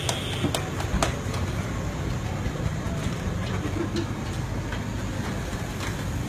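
Roadside street noise: a steady low rumble of traffic, with a few short clinks and knocks of steel utensils at the food stall, about a second in and again near four seconds.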